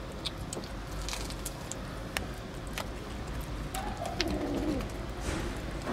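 Kittens eating wet cat food from a tray, with small smacking and clicking sounds. About four seconds in, a low cooing call lasts about a second.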